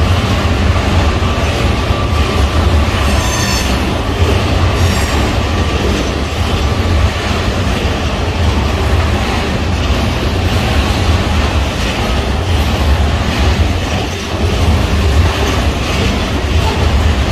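Freight train rolling past with a steady heavy rumble of wheels on rail, and a brief high wheel squeal about three to five seconds in.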